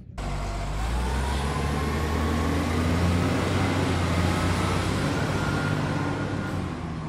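Large truck engine running, a steady low rumble under a hiss that starts abruptly just after the beginning and eases off near the end.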